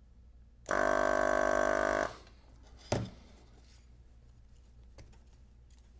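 S-993A desoldering gun's built-in vacuum pump buzzing steadily for about a second and a half as the trigger pulls vacuum, sucking melted solder out of a capacitor's through-hole joint. A single sharp click follows about a second later.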